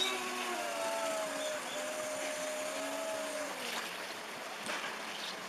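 Car horns sounding continuously on their own, set off by tsunami floodwater shorting them. Two or more held notes waver slightly in pitch and die away about three and a half seconds in, over a steady rush of flowing water.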